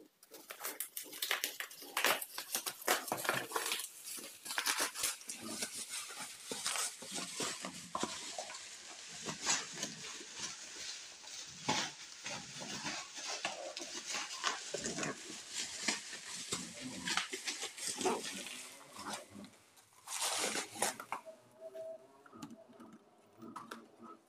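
Plastic parcel mailer and bubble wrap being torn open and pulled apart by hand: dense crinkling and crackling with many sharp snaps, dying down near the end.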